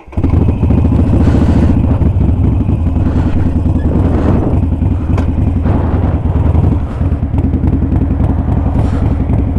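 Harley-Davidson Sportster Iron 883's air-cooled V-twin engine running loudly at a steady engine speed.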